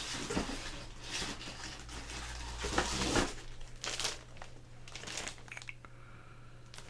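Packaging crinkling and rustling in uneven bursts as CGC-graded comic slabs are unwrapped and handled, loudest about three seconds in.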